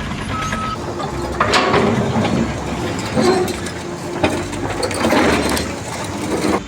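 Machinery running, with irregular clattering knocks.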